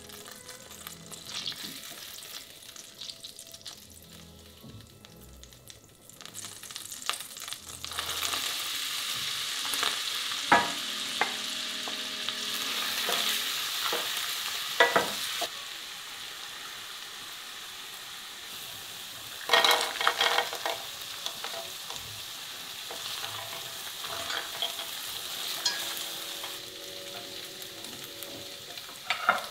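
Butter sizzling gently as it melts in a stainless steel pot. About eight seconds in, the sizzle grows louder as chopped onion fries in the hot butter, and a wooden spatula scrapes and knocks against the pot as it is stirred.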